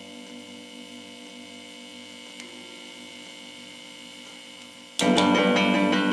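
A steady hum with a slow, even pulse. About five seconds in, music cuts in abruptly and much louder: a chord of many ringing notes.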